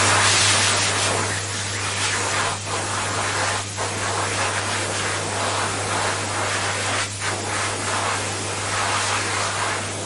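Electric hand dryer blowing: a steady rush of air over a constant low motor hum, a little louder in the first second or so, with a few brief dips in the airflow.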